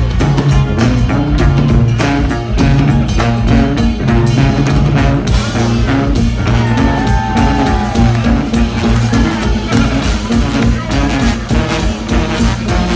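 Live New Orleans funk band music played loud: a sousaphone bass line, electric guitar and drum kit.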